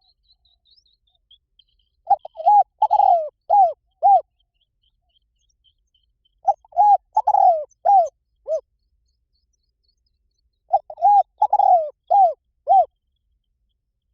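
Spotted dove cooing as a decoy call: three phrases of five or six short arched coos, each phrase about two seconds long, with pauses of about two seconds between them. Faint high chirps of other small birds are heard in the first second.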